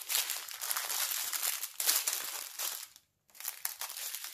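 Small plastic bags of square diamond-painting drills being handled, crinkling steadily, with a brief break about three seconds in.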